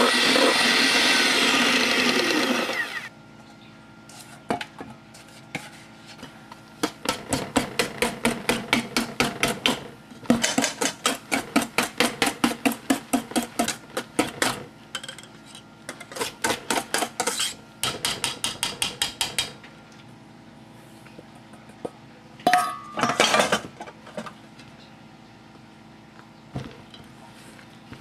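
Electric hand mixer whirring in stiff meringue for the first few seconds, then cutting off. After that, a utensil working a thick cake batter in a metal bowl, scraping and tapping against the bowl in runs of about four strokes a second, with pauses between runs.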